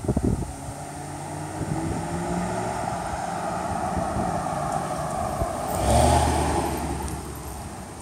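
2009 Ford F-150's 5.4-litre V8 accelerating, its pitch rising, then getting louder about six seconds in before easing off.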